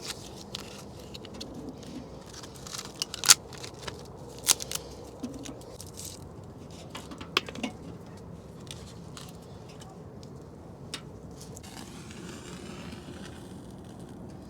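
Scattered clicks, scrapes and a few sharp knocks of objects being handled, over a faint steady background.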